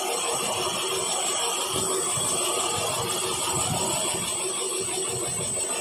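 Cylinder boring machine running steadily, its boring bar cutting down through the bore of a motorcycle cylinder block, a continuous even machine hum with a thin high whine.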